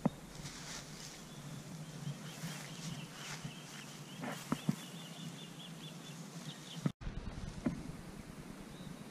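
Outdoor ambience with a small creature's faint, high chirping that quickens into a rapid run of short notes, over a low steady hum. A few sharp knocks fall at the start and about halfway, and the sound cuts out for an instant shortly before the end.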